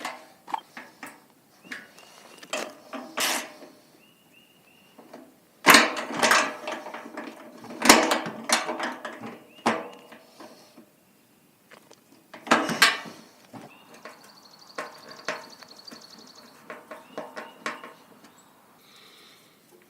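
Irregular clanking, knocking and rattling of metal parts and hardware being handled while a replacement fuel tank is fitted to a generator frame. The clatter comes in a busy stretch about six seconds in, with another loud burst of knocks a little past the middle.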